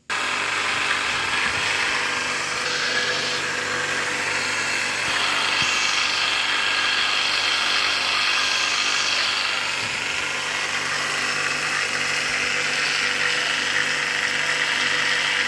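Single-phase high-pressure pump running steadily, its electric motor giving a steady hum under a loud hiss. It starts abruptly at full level.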